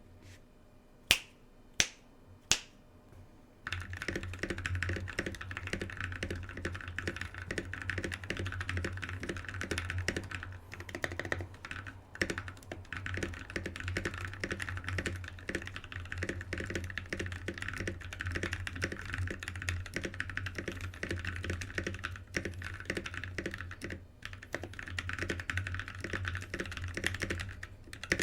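Three sharp, loud clicks a little over half a second apart, then steady fast typing on a custom mechanical keyboard: a Drop Carina with lubed NovelKeys Cream linear switches on a brass plate and PBT keycaps, a dense run of clacking keystrokes.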